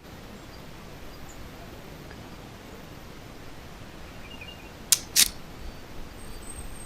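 Camera shutter clicking twice in quick succession about five seconds in as a still photo is taken, over a steady low background hiss.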